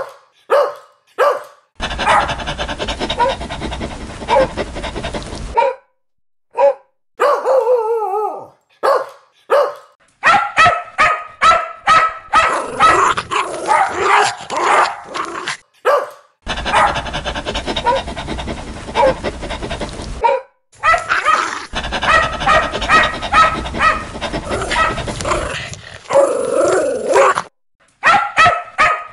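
Dogs barking hard and repeatedly, several barks a second, in spliced recordings that cut in and out abruptly with short gaps between them.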